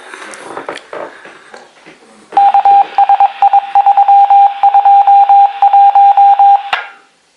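Light clattering for about two seconds, then a loud electronic beep at one steady pitch, keyed on and off rapidly in an uneven pattern for about four and a half seconds before cutting off abruptly. The tone sounds thin, as if heard over a phone line.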